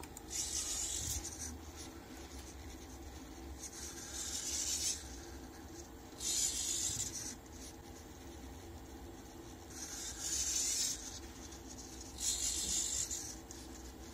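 Pen tip held by a robot arm scratching across paper in five strokes, each about a second long, with short pauses between them as the arm repositions.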